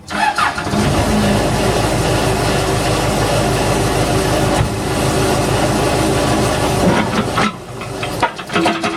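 Case 580 backhoe's diesel engine starting up abruptly and running loudly, then dropping noticeably in level about seven and a half seconds in.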